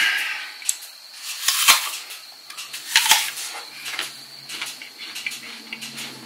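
Crisp bites into a raw apple, two loud crunches about a second and a half apart, followed by crunchy chewing with small crackles and a low closed-mouth hum.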